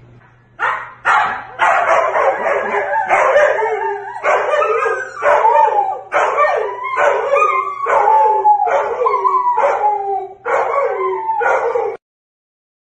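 Husky-type dog howling and barking in a long, nearly unbroken run of calls that slide up and down in pitch. It starts about half a second in and cuts off abruptly near the end.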